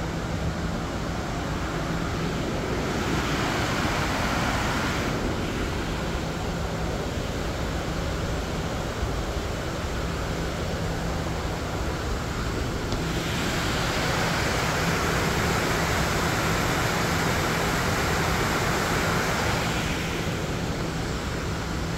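Steady rushing of Fall Creek's water tumbling over rapids and falls in the gorge below. It swells louder for a few seconds early on and again for a longer stretch in the second half.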